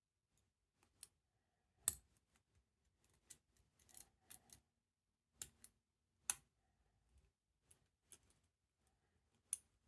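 Faint, irregular small metallic clicks of a short-hook lock pick working the pin tumblers of a 50mm Smith & Locke padlock under light tension, as pins set.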